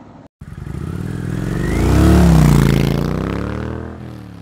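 A motorcycle passing by. The engine note swells to its loudest about two seconds in, its pitch rises and then drops, and it fades away.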